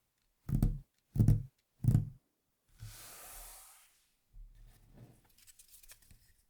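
Three heavy thumps about two-thirds of a second apart, then a brief rustle and a run of small light clicks and taps: mechanical keyboard parts being set down and handled on a desk.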